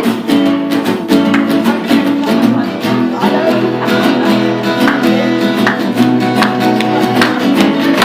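Acoustic guitar strumming chords in a steady rhythm: the instrumental opening of a song.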